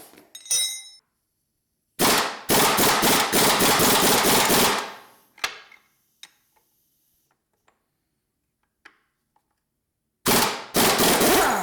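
Pneumatic impact wrench hammering in two loud bursts of rapid blows on a stubborn nut in the Mini gearbox, one lasting about three seconds and a shorter one near the end, with a light metallic clink near the start.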